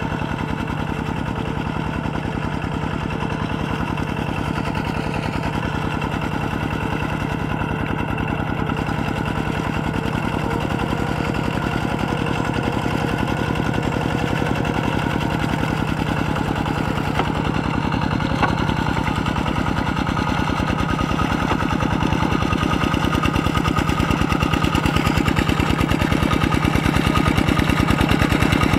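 Kubota RT120 single-cylinder diesel engine of a two-wheel walking tractor running steadily under load as the tractor works through a flooded, muddy rice paddy. It grows somewhat louder near the end as the tractor comes closer.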